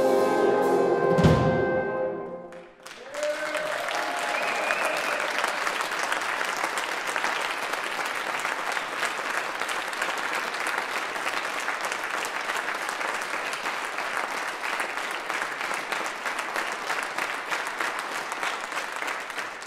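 A youth French horn ensemble plays its last chords, which stop about two and a half seconds in; the audience then applauds steadily, with a cheer rising over the clapping soon after it starts.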